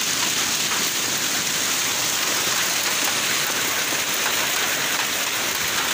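Hail and rain pelting down hard onto a paved yard during a hailstorm: a loud, steady hiss that does not let up.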